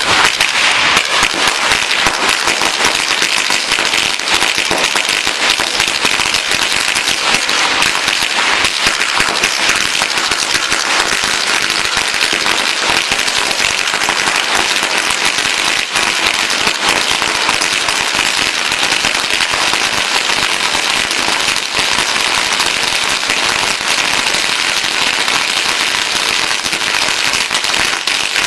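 A long string of Chinese firecrackers going off in a dense, unbroken rapid crackle of pops, steady and loud.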